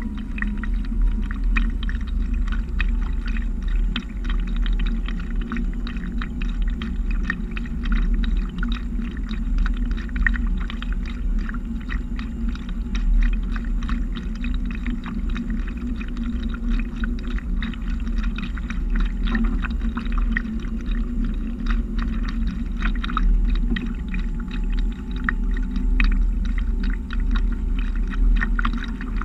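Lake water lapping and splashing against the catamaran's hull right beside the microphone, a dense irregular patter of small splashes over a steady low rumble.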